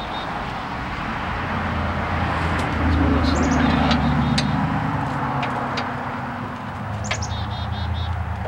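Small birds chirping in short high phrases, three times, the last a quick trill, over the low steady hum of a passing vehicle that swells to its loudest about three to four seconds in and then fades. A few faint light clicks come through as well.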